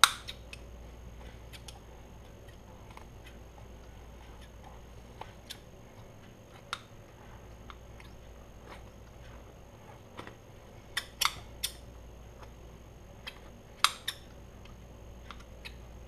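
Scissors snipping through a foam squishy toy: scattered sharp snips and clicks, the loudest right at the start, a quick run of three about eleven seconds in and another strong one near fourteen seconds, over a faint steady hum.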